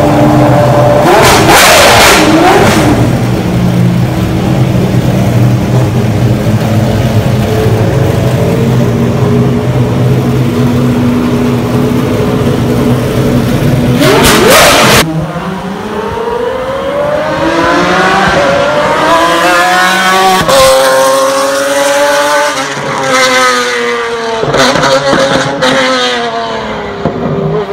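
Pagani Zonda Revolution's V12 engine idling steadily, with two short louder bursts. After a cut, it is heard out on the circuit, its pitch rising and falling again and again as it accelerates and shifts through the gears.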